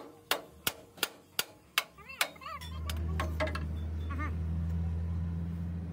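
Hammer blows on metal, about three a second, stop about two seconds in. A steady low machine hum then takes over, with a few brief bits of voice over it.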